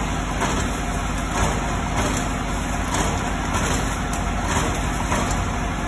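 Sachet water filling and sealing machine running: a steady motor hum with a faint repeating clack about every half second.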